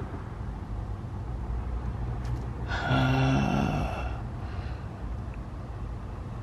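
A man lets out one long, voiced sigh about three seconds in, over a steady low hum.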